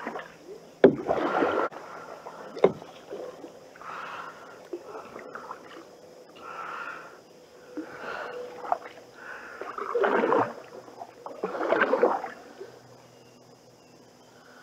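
Canoe paddle strokes swishing through the water about every two seconds, with a couple of sharp knocks in the first few seconds. The strokes die away near the end.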